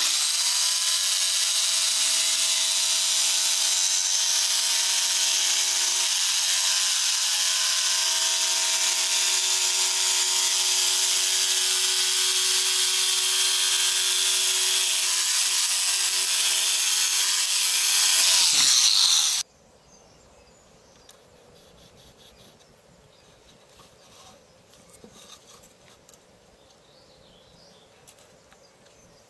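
Corded electric jigsaw running steadily as its blade cuts a curve through a plywood sheet, a mix of motor whine and blade rasp. About nineteen seconds in it is switched off and the motor winds down with a falling pitch. Only faint light ticks follow.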